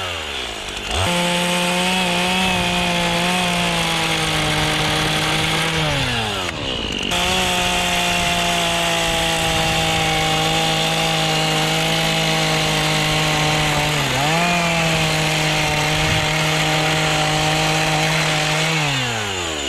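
Two-stroke Stihl chainsaw running at full throttle, cutting into wood. The engine note drops back and climbs again twice, dips briefly in the middle as the chain loads up in the cut, and falls off to idle near the end.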